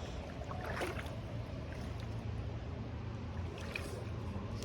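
Steady rush of flowing creek water around a wading angler, with a few faint splashes.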